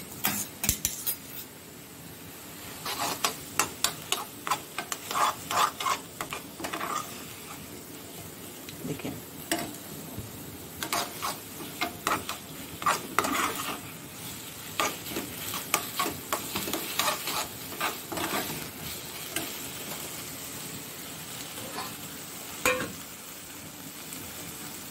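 Steel spoon stirring and scraping sautéing chopped vegetables and pizza sauce in a metal pan, in runs of quick scrapes and clinks against the pan, with one sharper knock near the end. A light sizzle from the frying runs underneath.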